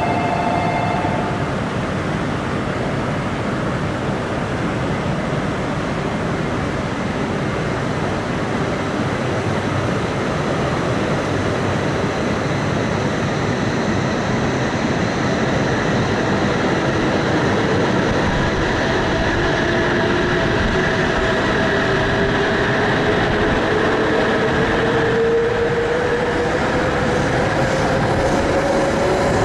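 E956 ALFA-X Shinkansen test train pulling out of a station platform at close range: a steady rush of running noise from the passing cars. About halfway through, the traction motors' whine rises slowly in pitch as the train gathers speed. A short tone sounds right at the start.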